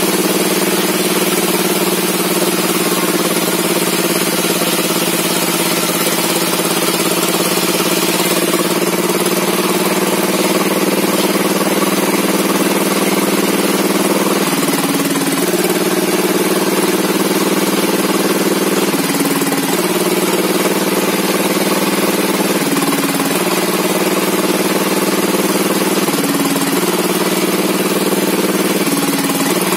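An engine running steadily, its pitch dipping briefly about five times in the second half and recovering each time, as if under passing load.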